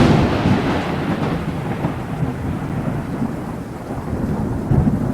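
Thunder rumbling, slowly dying away, with rain.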